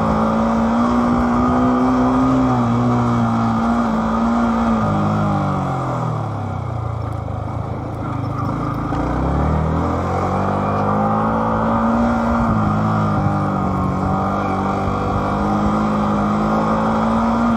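Motorcycle engine running while riding. About five seconds in the engine note drops as the bike slows, bottoming out near nine seconds, then rises again as it picks up speed.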